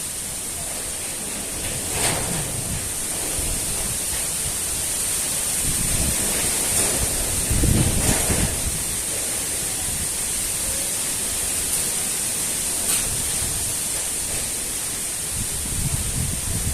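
Strong wind blowing steadily, swelling in gusts about two seconds in and hardest around eight seconds, when it buffets the microphone with a low rumble.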